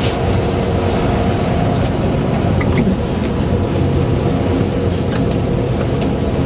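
Steady road noise inside a car driving on a highway through slush: engine and tyres on slush. A couple of brief high squeaks sound around the middle.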